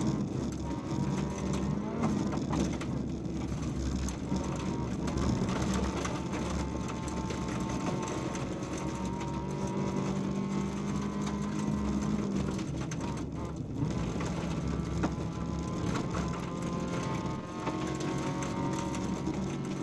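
VW Polo 1.4 16V rally car's four-cylinder engine running hard, heard from inside the stripped cabin at speed on a gravel stage, with loose gravel rattling and ticking against the underbody. The engine note drops off briefly about two thirds of the way through and again near the end, at lifts or gear changes.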